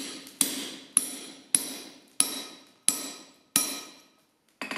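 Hand hammer striking a hot punch driving it through red-hot square steel bar over a bolster plate on the anvil: about six heavy, ringing blows roughly two-thirds of a second apart, each ringing away, then a pause and a lighter blow near the end. This is hot punching the hole through from the opposite side of the bar.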